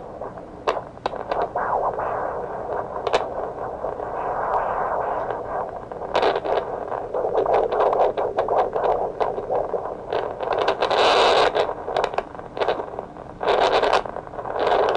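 Fetal Doppler monitor loudspeaker giving out a steady hiss broken by irregular scrapes and crackles, the noise of the probe moving over the belly while searching for the fetal heartbeat.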